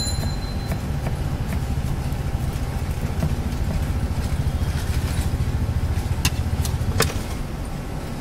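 A steady low engine rumble, like an idling motor vehicle, runs under a knife chopping coriander on a wooden board. Two sharp clicks come near the end.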